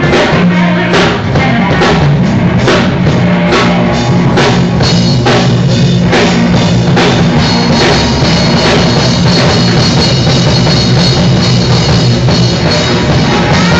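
Live band playing loudly: a drum kit keeps a steady beat under electric guitar and bass guitar.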